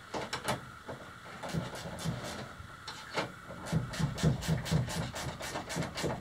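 A wrench turning nuts onto the marine-grade bolts that hold a boat's pedal drive: scattered metal clicks and scraping, then from about four seconds in a steady run of clicks, about four a second.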